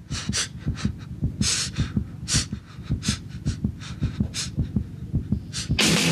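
A fast, even low thumping, about five beats a second, with short hissy bursts over it; guitar music comes in near the end.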